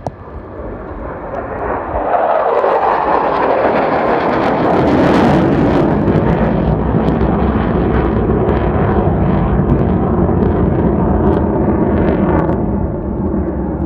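Mitsubishi F-2 fighter's single jet engine in afterburner on a high-speed low pass: the roar swells to full loudness about two seconds in, its pitch falls as the jet goes by, then it holds a steady loud rumbling roar as the jet pulls up and climbs away.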